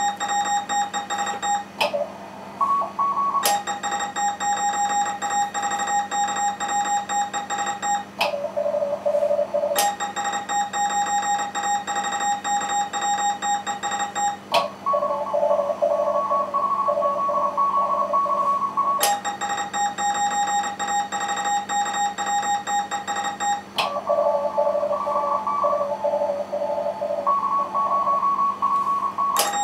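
Morse code (CW) contest exchanges on a ham radio station: runs of keyed tone at one fixed pitch, the station's own sending, alternate with replies keyed at other pitches, a lower and a higher one. At times several stations answer at once and overlap.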